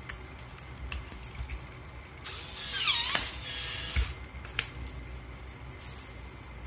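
Sharps Terminator needle destroyer working on a dental syringe needle pushed into it: irregular crackling clicks as its electrodes burn away the needle. About halfway through comes a hissing burst with a whine that dips and rises, then a couple of sharper clicks.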